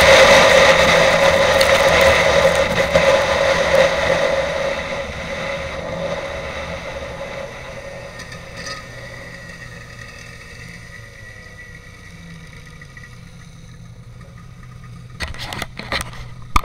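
Snowmobile engine heard from the rider's seat, running loud at speed and then easing off, dying down over several seconds to a low idle as the sled slows. A few sharp knocks near the end.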